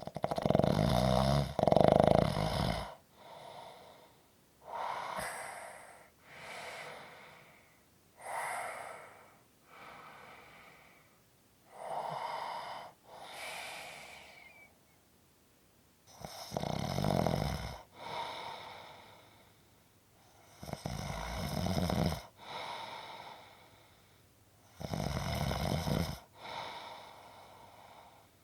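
Snoring: slow breaths in and out, each about one to two seconds long. Loud, rattling snores come at the start and again through the last third, with softer, quieter breaths between them.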